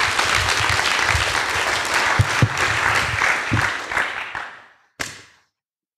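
Audience applauding, the clapping dying away after about four seconds, then a single short knock about five seconds in.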